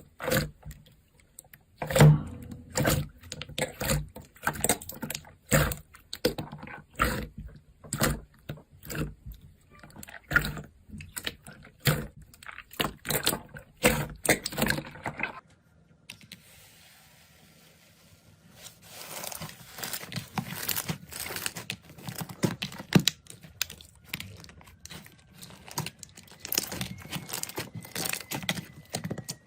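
Slime being squished and pressed by hand: a fast, irregular run of clicks and pops. About halfway through it drops to a quiet stretch for a couple of seconds before the clicking picks up again.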